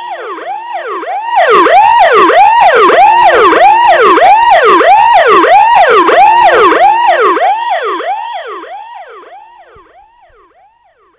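Siren sounded for the ceremonial ribbon cutting, signalling the official opening. A rapid up-and-down wail about twice a second swells loud about a second in, holds, and fades away over the last few seconds.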